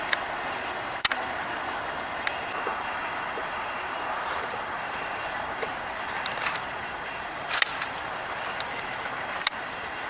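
Steady outdoor background noise, an even hiss, broken by a few faint sharp clicks.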